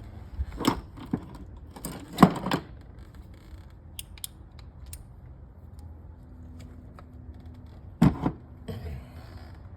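Hand tools and metal engine parts clinking and knocking as they are handled, with a cluster of sharp knocks about two seconds in and two more near the end.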